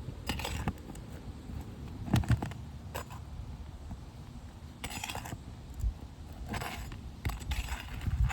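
A roofing tool scraping and prying at asphalt shingles, working them and their nails loose: about half a dozen short, irregular scrapes and rasps.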